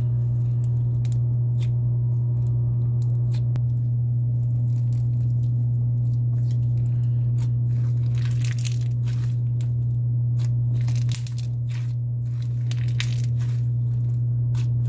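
Clear gummy slime packed with bingsu beads, fishbowl beads and pearls being squished and pressed by hand, the beads giving many short crackles and pops, more of them in the second half. A steady low hum runs underneath and is the loudest sound.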